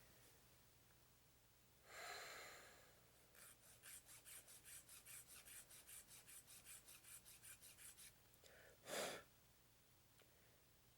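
Faint, quick back-and-forth scraping, about five strokes a second for roughly four and a half seconds: a hobby file rasping a plastic model-kit part. A breath comes before it, and a louder breath or sniff near the end.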